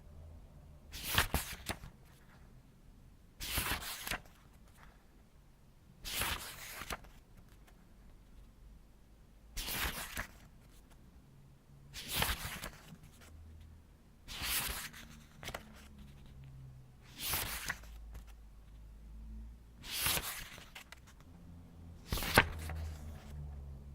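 Pages of a book being turned slowly by hand, nine separate paper swishes about every two and a half seconds, each lasting under a second.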